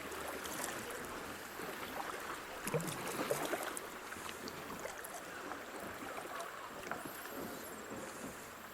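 Water splashing and running around a kayak being paddled down a creek, with a few light knocks in the first few seconds and a brief high chirp near the end.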